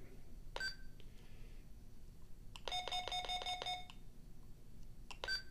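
Retevis RT628 walkie-talkie beeping as its buttons are pressed: a button click with a short key beep about half a second in and again near the end, and in the middle a rapid train of beeps, about seven a second, lasting just over a second.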